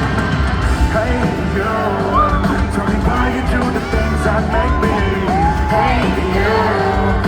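Live rock band playing loudly with singing, heard from among the audience, and voices yelling along.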